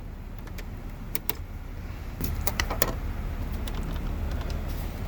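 Plastic dash trim clicking and snapping several times as it is pried and pulled away from its clips, over the low steady hum of the car's engine idling.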